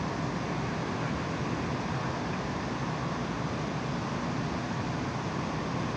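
Steady, even rushing noise inside the cabin of a Boeing 787 in flight, from the airflow and the engines.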